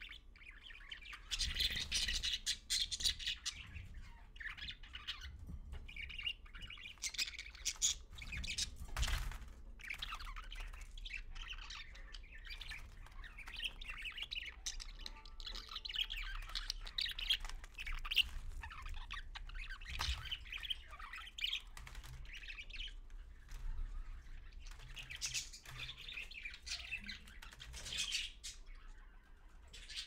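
Budgerigar chirping and chattering in short bursts on and off, with a couple of soft knocks.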